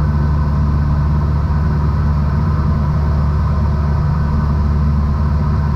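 Cessna 172 Skyhawk's piston engine and propeller running steadily in flight, a constant low drone.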